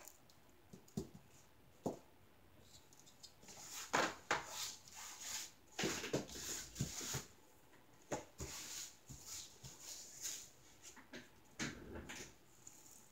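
Small plastic diamond-painting drills rattling and pouring through a plastic funnel tray into small plastic storage containers, with light clicks and taps as the containers and tray are handled on a table. The sound is faint, with several short rattling pours in the middle.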